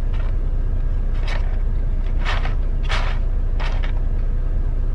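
Steady low rumble of an idling truck heard inside its cab, with four short soft noisy sounds over it.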